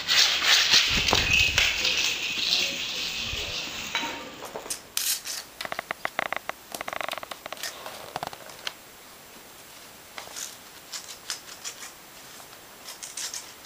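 A cat scrambling and pawing at a thin woven rug: a loud burst of scuffling and rustling with a few low thumps over the first four seconds, then scattered light scratches, taps and rustles as it paws at the rug and pushes under it.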